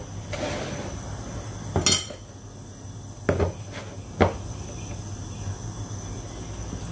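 A metal spoon scooping flour and knocking against a ceramic bowl and a plastic jar. There are a few sharp knocks: one about two seconds in, then three more between three and four and a half seconds.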